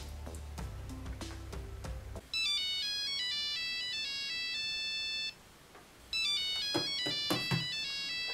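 Mobile phone ringtone: a high, bright electronic melody plays for about three seconds, stops briefly, then starts again. A few knocks and rustles sound in the second round as the phone is reached for on the nightstand.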